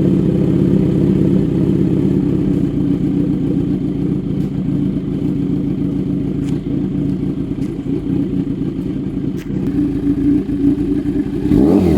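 Kawasaki Z900 inline-four engine idling steadily through a DTMOTO aftermarket exhaust, freshly started. Near the end, a single throttle blip raises the pitch briefly and lets it fall back.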